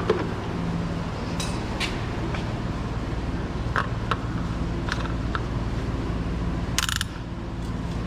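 Scattered clicks and clinks of tools and parts being handled, over a steady low hum, with a short hiss about seven seconds in.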